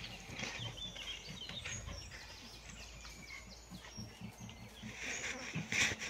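Outdoor rural ambience with small birds chirping repeatedly in the background. A brief louder noise comes near the end.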